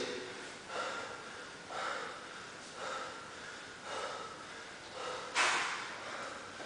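Heavy breathing of a person winded mid-workout, one hard breath about every second, with a sharper, louder exhale about five and a half seconds in.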